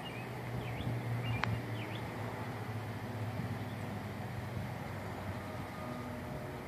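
Steady low outdoor hum and rumble, with a few faint high chirps and one sharp click about one and a half seconds in.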